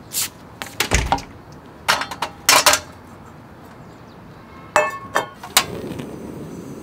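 Steel skillets clanking as they are set down on a portable butane stove, then a few clicks of the stove's igniter about five seconds in and the burner catching with a steady rushing hiss, lit to season a new skillet.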